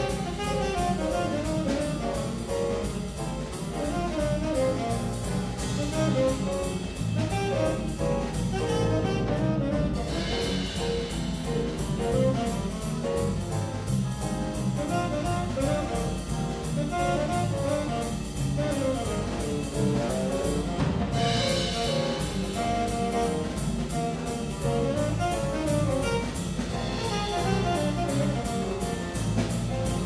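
Jazz big band playing an uptempo piece, with a saxophone solo over piano, guitar, bass and drum kit.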